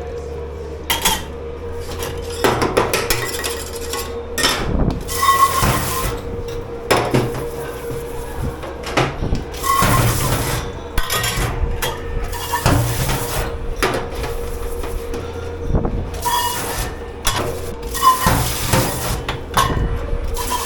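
Dishes, pots and cutlery being handled in a commercial kitchen dish pit: repeated irregular clatters, clinks and scrapes, over a steady machine hum.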